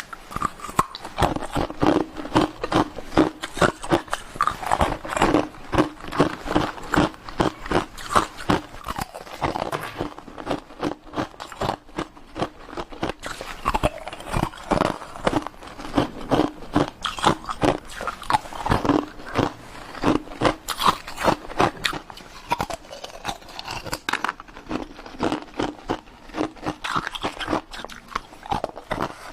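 Ice cubes being bitten and chewed, a continuous run of rapid crunching cracks, several a second.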